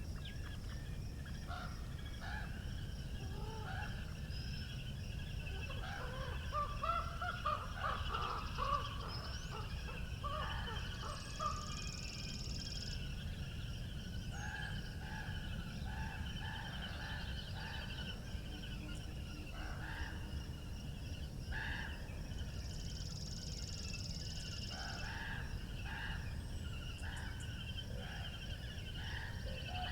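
Wind noise on the microphone with small birds chirping and calling throughout, a busy stretch of calls about a quarter of the way in, and twice a buzzy high trill lasting about two seconds.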